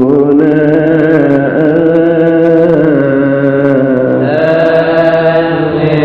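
Coptic Orthodox liturgical chant: a male voice draws out the last word of a psalm verse in a long melismatic line, the pitch gliding slowly up and down over a steady low tone.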